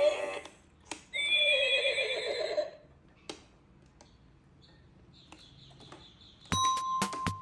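A horse whinny, one wavering call of about a second and a half that falls in pitch, likely the recorded neigh of an electronic toy. Near the end, a run of bright chiming notes starts.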